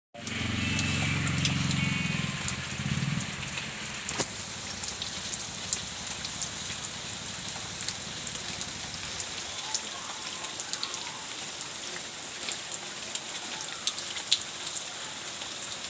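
Typhoon rain falling steadily on puddles, leaves and ground, with many sharp drops ticking close by. A low pitched drone is the loudest sound during the first three seconds.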